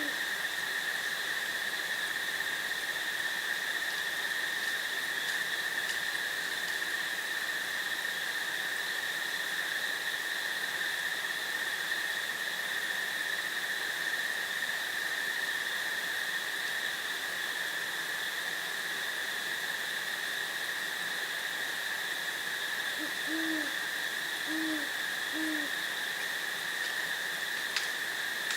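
A steady, unbroken chorus of crickets with an owl hooting three short low notes, about a second apart, near the end.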